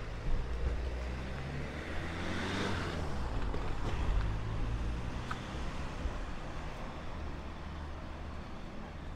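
Outdoor street ambience: a steady low rumble, with a hiss that swells and fades about two to three seconds in.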